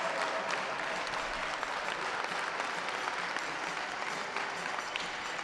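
Audience applauding, steady dense clapping.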